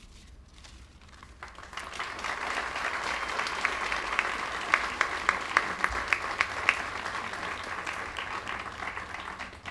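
An audience applauding: the clapping starts about a second and a half in, swells with a few loud single claps standing out, and dies away near the end.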